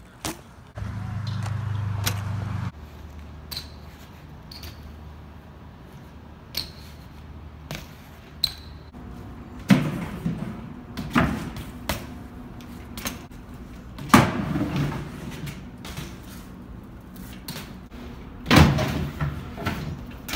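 BMX bike street riding: tyres and pegs knocking onto ledges and hard landings on concrete, heard as a series of sharp clattering hits, the loudest in the second half. A steady low hum lasts about two seconds near the start.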